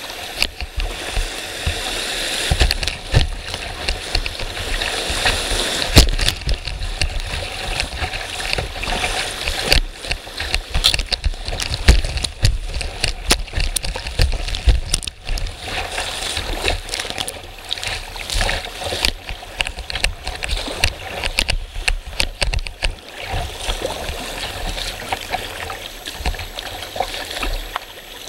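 Rushing, churning whitewater of class II rapids heard from a kayak at water level. Frequent splashes and sharp thumps of water strike the boat and camera throughout.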